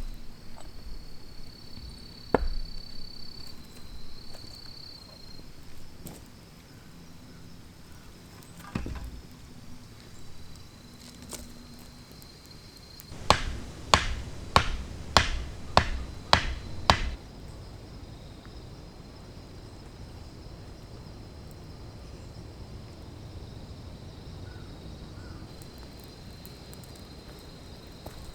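A run of eight sharp knocks in about four seconds, coming a little faster toward the end, after a couple of single knocks earlier. A faint, steady high insect trill sounds in the background.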